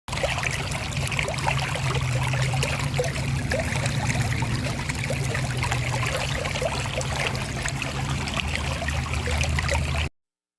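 Small waterfall splashing and trickling steadily into a pool, with many small droplet splashes over a low rumble; it cuts off suddenly about ten seconds in.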